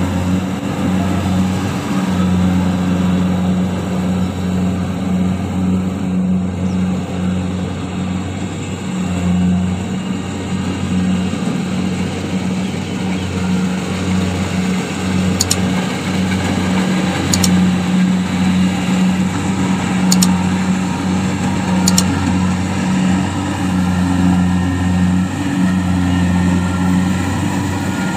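Kubota DC-70 rice combine harvester's diesel engine running steadily under load as the machine cuts and drives through deep mud, a continuous drone with slight wavering.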